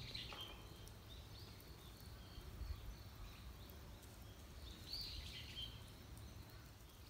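Short high chirps from a small bird, one at the start and another about five seconds in, over a faint low outdoor rumble.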